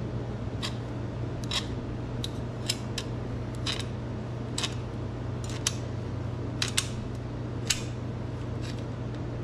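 Aviation tin snips cutting around a metal taillight ring: a sharp snip about once a second, irregularly spaced, as the blades bite and close. A steady low hum runs underneath.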